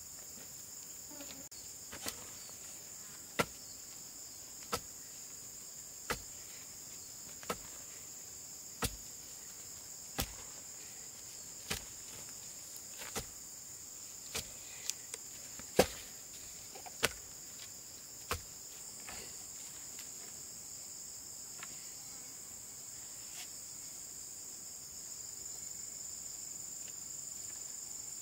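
Steady, high-pitched chorus of insects, with a series of sharp knocks repeating about every second and a half from about two seconds in until about eighteen seconds in.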